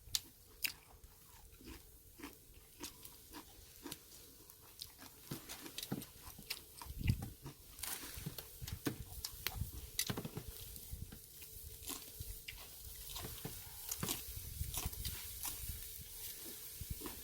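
Close chewing and crunching of a napa cabbage wrap of grilled pork and kimchi, with many short mouth clicks and a few heavier bites.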